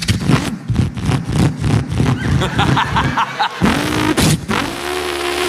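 A man's voice imitating a car engine revving: repeated quick rises and falls in pitch, then a long rising rev that levels off and is held steady near the end.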